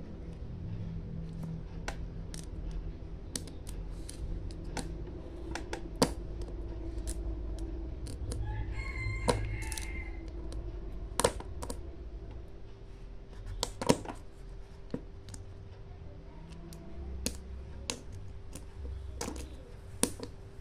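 Scattered light clicks and knocks from small electronic parts and tools being handled on a workbench, over a steady low hum.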